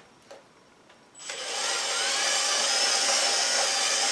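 Cordless drill starting about a second in and running steadily as it chamfers the edge of a lifter valley vent hole in a cast-iron Vortec 5.7 small-block Chevy engine block, ahead of tapping it for a 1/4 NPT standpipe.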